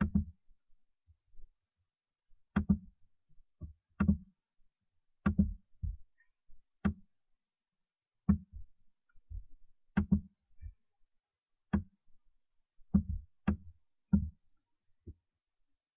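Computer mouse buttons clicking, about fifteen clicks at irregular intervals, some in quick pairs, each with a dull knock.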